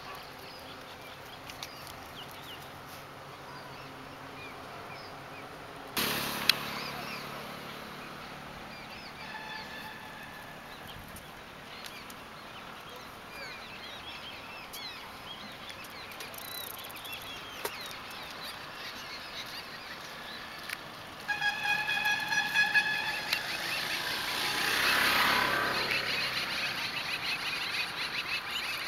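Small birds chirping throughout, with a vehicle driving past near the end. Over the last several seconds a pitched call repeats in short pulses.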